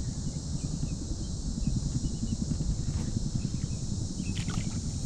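Outdoor ambience by a pond: a steady low rumble with a constant high insect hum and a few brief, faint bird chirps.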